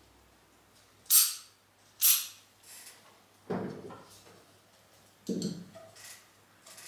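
Ikebana scissors cutting an iris stem: two sharp snips about a second apart, followed by two duller knocks.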